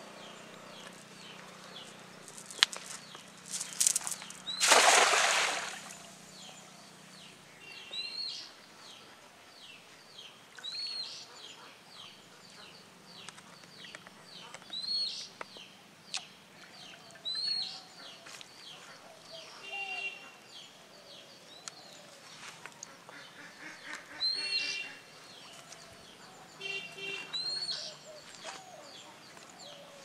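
A cast net lands on the pond with a splash about five seconds in. Afterwards birds call every few seconds, short high arching notes with a few lower calls among them.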